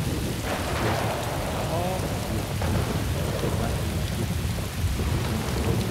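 Heavy rain pouring steadily, with a continuous low rumble of thunder underneath.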